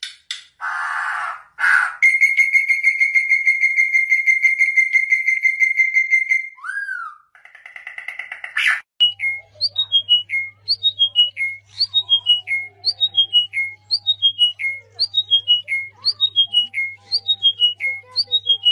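A string of different bird calls: two short harsh calls, then a long rapid trill held on one pitch for several seconds. About halfway in, a quick run of whistled notes falling in pitch begins, repeated about once a second over a low steady hum.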